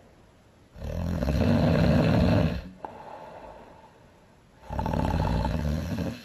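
A woman snoring loudly: two long snores, the first starting about a second in and the second near the end, with quieter breathing between.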